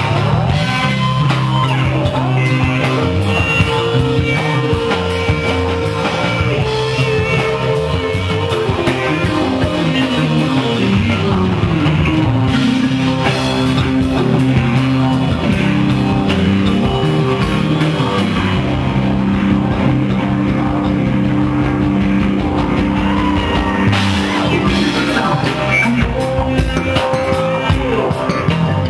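Live rock band playing loud amplified music, with electric guitars, bass guitar and drum kit, some sustained notes sliding down in pitch.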